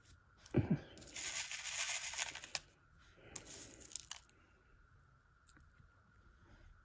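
A soft thump, then two bursts of rustling, crinkling noise, the longer one about a second in and a shorter one about three seconds in, with a few sharp clicks.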